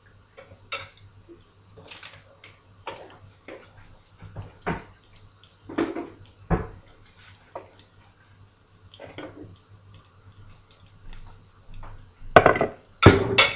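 Spoon knocking and scraping in a bowl of pumpkin cutlet batter: a run of short, irregular clinks and scrapes, louder and closer together near the end.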